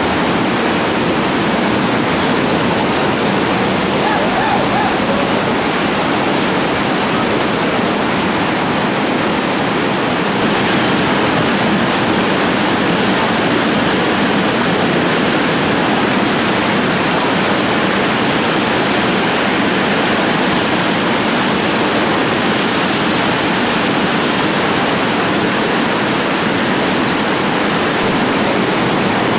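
Steady rushing of a whitewater rapid: river water pouring and churning through a surfing hole, heard close to the water.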